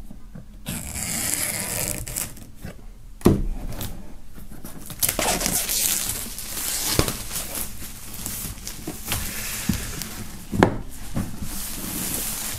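Plastic shrink-wrap film being cut with a folding knife and torn and crinkled as it is pulled off a cardboard box, with a few sharp knocks from handling the box, the loudest a little over three seconds in.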